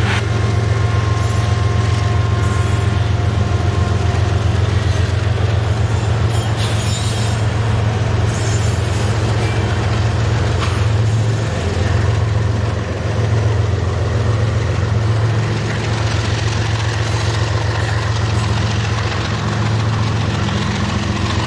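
Two GE diesel locomotives pulling past under power with a steady low engine drone, followed by a long string of covered hopper cars rolling by with continuous wheel-on-rail noise.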